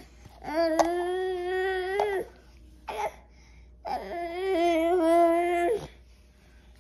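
Baby vocalizing: two long, steady-pitched wailing sounds of about two seconds each, with a brief sound between them.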